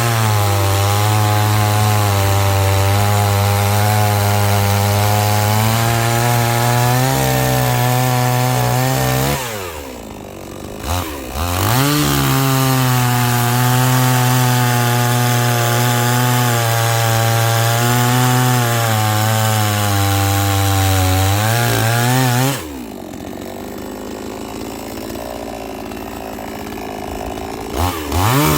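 Chainsaw engine running at full throttle under load, cutting wood. It drops to idle about ten seconds in, revs back up for a second long cut, falls to idle again about two-thirds through, and revs up once more near the end.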